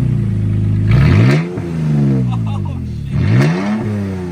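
Toyota Tacoma engine running with no exhaust fitted, blipped twice: each rev climbs quickly and falls back to a loud, rough idle.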